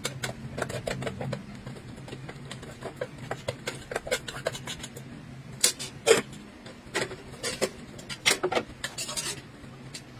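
Metal utensil scraping and clinking against a metal pot and a wok as food is dished onto a plate: a string of sharp clinks and scrapes, loudest about six seconds in.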